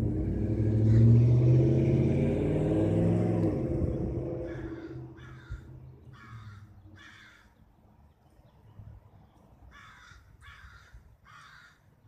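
A vehicle passes, loudest in the first few seconds and then fading away. A bird calls in two series of short, evenly spaced notes: four notes from about halfway in, then three more near the end.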